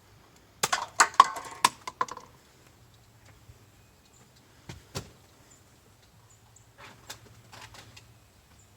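Clicks and a rattling clatter of small plastic toy Nerf blasters and darts being handled, a burst about a second in, then two sharp clicks and a softer group near the end.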